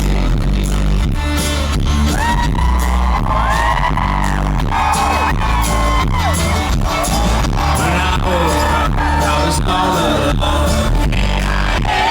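Live band playing an up-tempo folk-rock song with a steady drum beat, about two hits a second, and singing, heard loud from within the audience.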